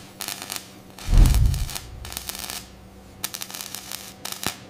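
Welding arc crackling and spitting in irregular bursts as a robotic torch runs along a steel seam. A deep boom about a second in is the loudest sound, over a faint steady hum.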